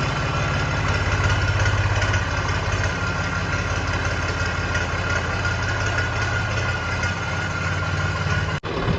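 Tractor diesel engine idling steadily, a pulsing low rumble with a thin steady whine above it. It starts abruptly and drops out for an instant near the end.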